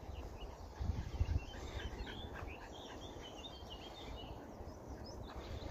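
Small birds chirping in short calls against a steady outdoor background, with a brief low rumble on the microphone about a second in.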